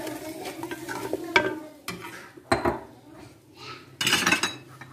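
Wooden spatula stirring thick, bubbling tomato-onion masala in a terracotta handi, knocking and scraping against the clay pot several times, with the loudest scrape near the end. The masala sizzles faintly as it fries in hot oil.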